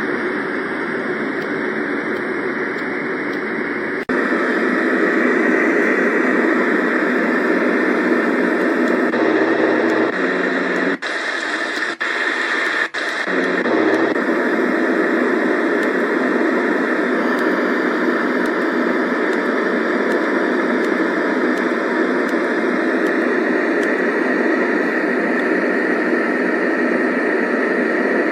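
Color Noise sound machine playing a steady white-noise-type hiss through its small speaker, with almost no deep bass. The sound changes about four seconds in and drops out briefly twice near the middle.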